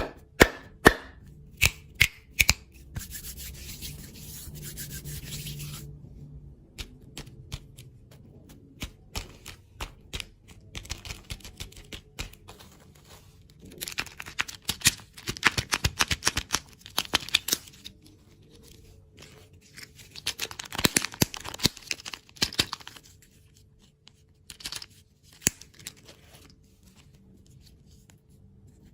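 Candy wrappers and packaging being opened by hand: plastic crinkling and tearing, with many sharp clicks and taps. A steady tearing hiss runs for about three seconds near the start, and dense crackling comes in two later spells.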